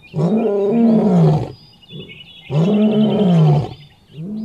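Male lion roaring: long, deep calls that each rise then fall in pitch, about two and a half seconds apart, with a third call starting near the end.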